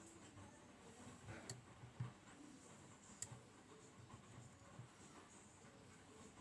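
Faint small metallic clicks and light scraping from a flat flag pick working the pins inside an Abus D6 dimple euro cylinder lock, with a couple of sharper clicks about a second and a half and three seconds in, while the picker searches for the pin that is not set.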